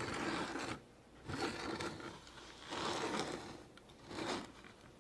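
A toy being handled makes four bursts of scraping and whirring, each under a second long, with short pauses between them.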